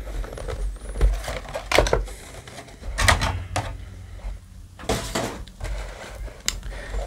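Clear hard-plastic booster-pack tray handled on a table: several separate sharp plastic clicks and knocks, spread across a few seconds, with light rustling of the foil packs.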